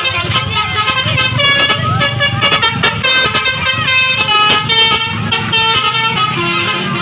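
Indonesian 'telolet' bus horn, a multi-tone musical air horn, playing a quick run of stepped notes over a steady low rumble.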